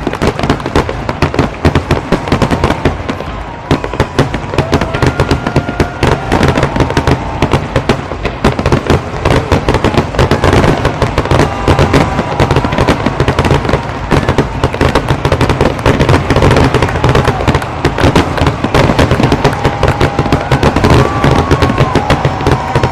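Fireworks display: a dense, continuous barrage of crackling and popping bursts many times a second, growing louder about halfway through, with thin whistling tones weaving through it.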